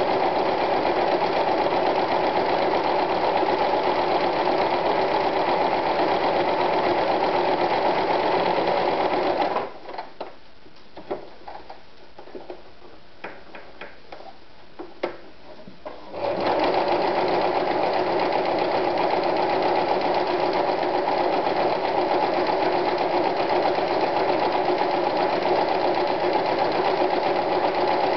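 AEG NM 376 B electric household sewing machine running steadily, stitching through fabric. It stops about a third of the way in, a few light clicks of handling follow, then it starts again about halfway through and runs until it stops right at the end.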